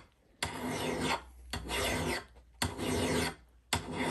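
Hand file rasping across the steel bit of a Council Tool Hudson Bay axe in steady strokes, about one a second: three full strokes, then a fourth starting near the end. The file is reprofiling the axe's bevel, worked heel to toe for an even grind.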